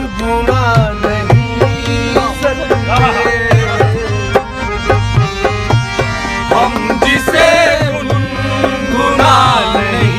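A man singing a Hindi film song with a dholak played by hand, the drum keeping a steady beat under the voice.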